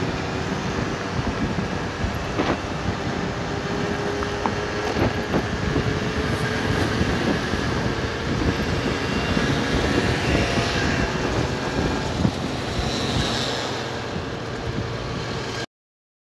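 Bentley Continental GT V8 driving along a street: steady engine and tyre noise with a faint drone, cutting off suddenly near the end.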